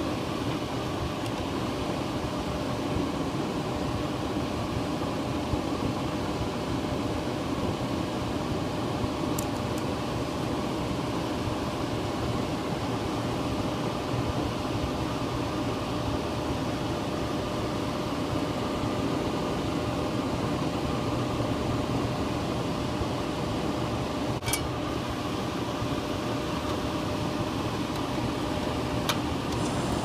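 Blower motor and fan of an old Trane air handler running steadily, an even rush of air with a faint steady hum. One short click comes late on.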